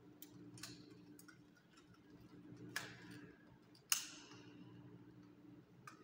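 Scattered sharp clicks and knocks from hand work on a metal electrical box and its fittings. The loudest is a ringing metallic click about four seconds in, over a steady low hum.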